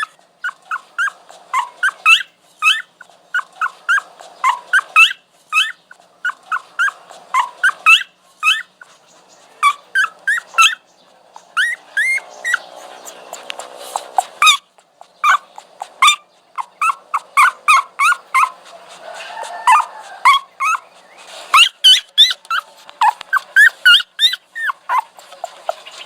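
A dog whining: short, high-pitched whimpers in quick runs of a few at a time, with brief pauses between runs and a longer, rougher, lower whine about halfway through.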